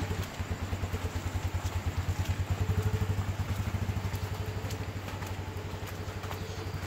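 Small motorcycle engine idling with a steady, rapid putter, swelling a little around the middle and then easing off.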